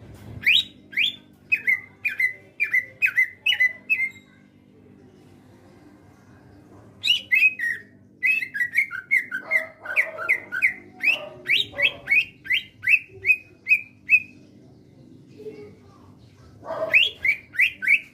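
Green leafbird (cucak ijo) singing in three loud runs of short, sharp whistled notes that each slide down in pitch, about two to three a second, with pauses of a few seconds between runs.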